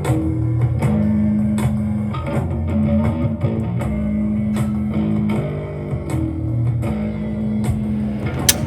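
Rock background music with electric and bass guitar over a steady beat, with a sharp crack right at the end.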